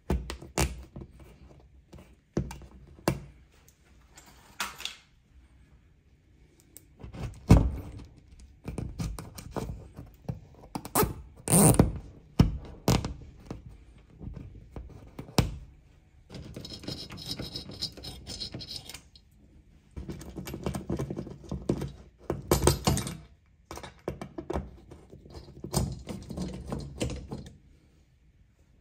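Long hex key turning a screw through the metal wall plate of a TV mount: sharp metal clicks and knocks, with several longer stretches of scraping as the screw is driven home.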